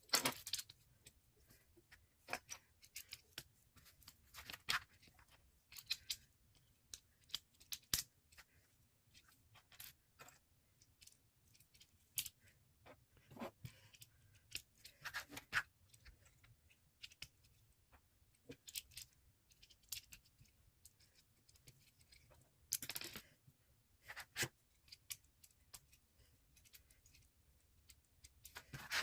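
Small plastic Lego pieces being handled and pressed together: irregular small clicks and short rattles, with a few louder bursts of rustling.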